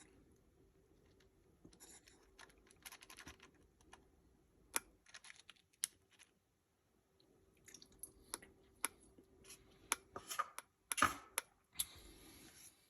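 Irregular light clicks and taps, with a louder flurry about eleven seconds in, from a utensil and food being handled while sour cream is dabbed onto a plate of tortilla-chip nachos.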